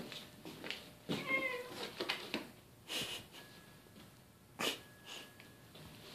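A long-haired domestic cat meowing once, about a second in, a short call that rises and falls, typical of a cat asking for attention. Several brief scuffing or rustling noises come before and after it.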